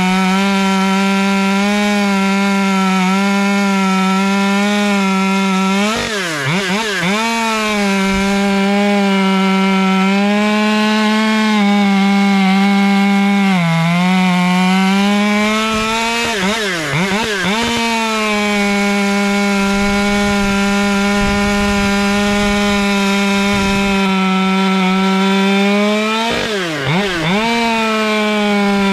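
Husqvarna T540 XP Mark III top-handle two-stroke chainsaw held at high revs cutting through a log. Three times the engine note dips sharply and climbs back, with a smaller dip in between. It is a fresh saw whose AutoTune is still recalibrating after a reset.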